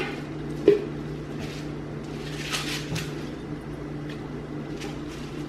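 Kale leaves rustling and crinkling as they are pressed by hand into plastic Magic Bullet blender cups, with a single light knock about a second in, over a steady low hum.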